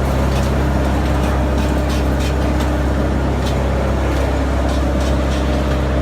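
Wood chipper running steadily with a deep, even hum, with short sharp cracks at irregular intervals.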